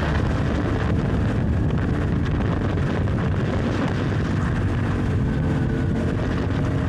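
Honda XR650L's single-cylinder four-stroke engine running at a steady road speed, with wind rushing over the microphone.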